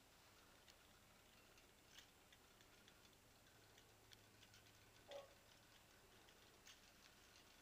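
Near silence: room tone with a few faint, scattered ticks.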